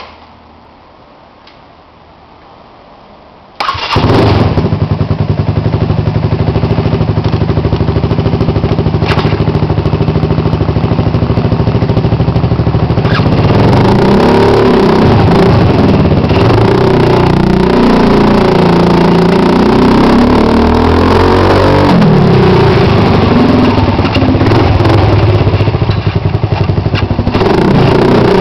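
Suzuki Burgman 125 scooter's single-cylinder four-stroke engine starting suddenly about three and a half seconds in and idling steadily, then revved up and down repeatedly from about halfway through.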